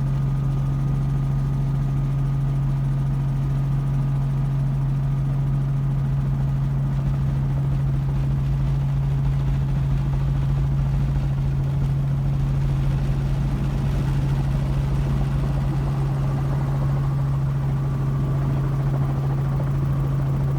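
Steady low vehicle drone, one unchanging hum that holds the same pitch and level throughout.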